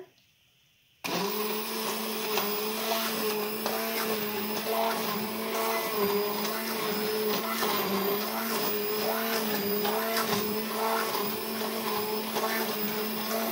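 GE handheld immersion blender switching on about a second in and running steadily as it purées hot roasted squash and apple soup in a steel pot.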